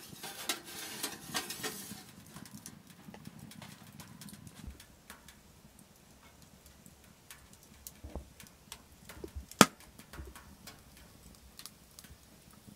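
Wood fire crackling inside a Winnerwell Nomad woodstove, with scattered sharp pops and one loud pop about two-thirds of the way through. A denser flurry of clicks and hiss fills the first two seconds.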